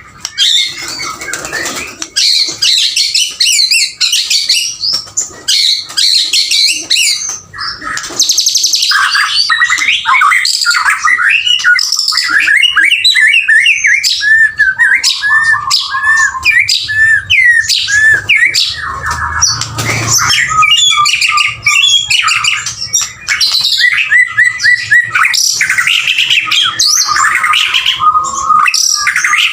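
Male white-rumped shama (murai batu) in full song: a loud, unbroken stream of varied whistles, slurred notes and rapid chirps and trills.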